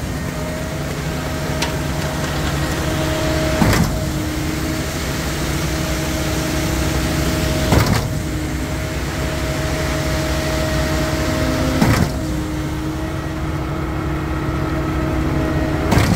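Heavy diesel engines of a concrete mixer truck and concrete pump running steadily while concrete is pumped. A sharp knock comes about every four seconds.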